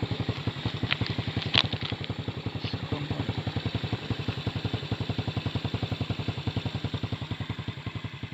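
Small motorcycle engine running steadily at low speed, its firing an even rapid pulse, with a couple of sharp clicks about a second and a half in.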